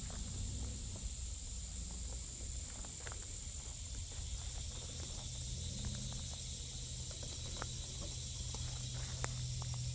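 Steady high-pitched insect chirring, with a low rumble underneath that grows a little louder near the end and scattered light clicks.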